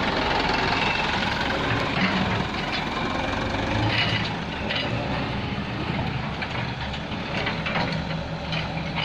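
Heavy diesel engines of an excavator and dump truck running steadily, with a few short knocks scattered through.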